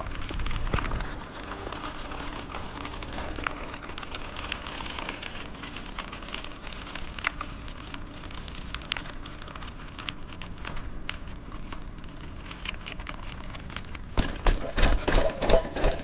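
Mountain bike tyres rolling over a dirt trail: a steady gritty hiss full of small clicks and crackles. About two seconds before the end it turns into louder knocks and thumps as the bike bumps over rougher ground.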